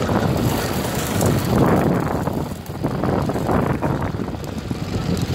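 Wind buffeting a phone microphone over the rumble of a pickup truck driving on a dirt track, in irregular gusts.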